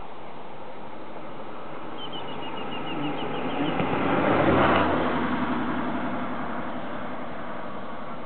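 A vehicle passing: its noise swells over about a second and a half and fades away, over a steady background hiss. About two seconds in, a bird gives a short, quick run of high notes falling slightly in pitch.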